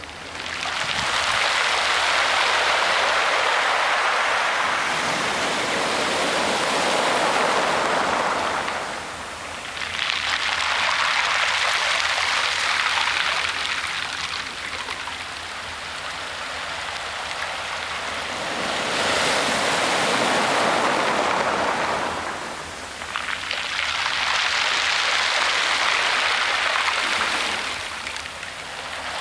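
Sea waves washing onto a shingle beach, the noise swelling and easing four times.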